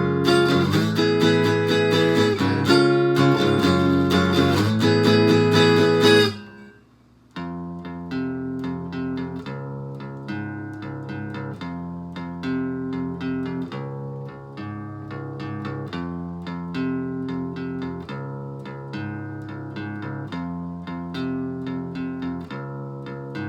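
Amplified acoustic guitar fitted with a Bartolini 3AV soundhole pickup, run through a BOSS DS-1 distortion pedal into an amp. It starts with loud, full strummed chords that stop about six seconds in. After a second's pause it goes on more quietly with picked single notes and light chords.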